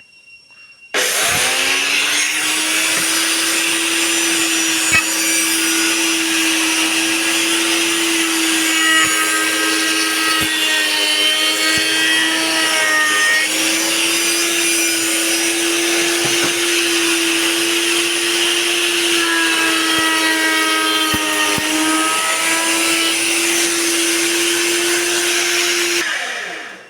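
Table-mounted electric wood router with a bearing bit switched on, its motor running up to a steady high-pitched whine. The pitch dips briefly twice as the router is loaded, typical of the bit cutting into wood. It is switched off near the end and winds down.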